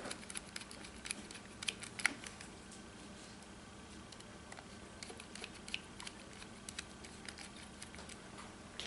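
Small T6 Torx bit and precision screwdriver driving screws back into a Cold Steel Recon 1 folding knife's handle: faint, irregular clicks and ticks as the bit seats and turns in the screw heads.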